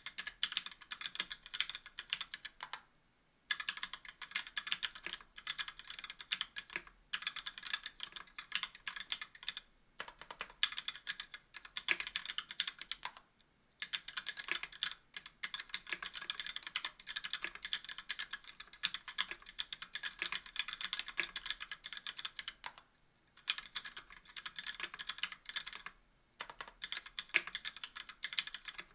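Typing on a Tofu60 60% mechanical keyboard with an aluminium case and plate, GMK keycaps and stock Gateron Black linear switches: a fast, steady run of keystrokes. The typing breaks off for a moment about three seconds in, again at about seven, ten, thirteen, twenty-three and twenty-six seconds.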